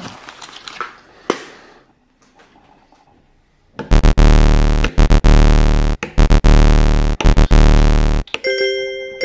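Cardboard toy packaging crinkling and tearing for the first two seconds. After a short quiet gap, loud electronic music plays with a few brief breaks, giving way near the end to a quick run of bright bell-like dings.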